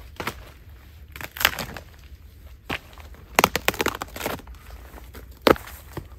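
Rotten birch wood and bark crunching and cracking as a fallen birch log is broken open and its bark pried loose with a stick. The sounds come as irregular crackles and snaps, with the sharpest ones about one and a half, three and a half and five and a half seconds in.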